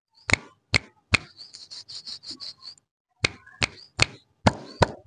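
A series of sharp, separate knocks, two or three a second, with a quick run of about ten lighter, higher clicks between them from about a second and a half to nearly three seconds in.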